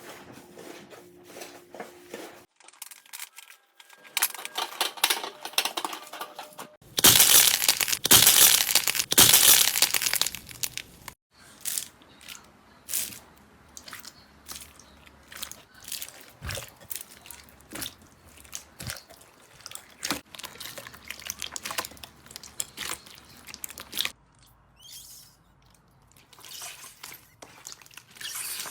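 Slime being squeezed and poked by hand, giving off crunchy crackling pops, with a louder, denser burst of crackling about seven to eleven seconds in.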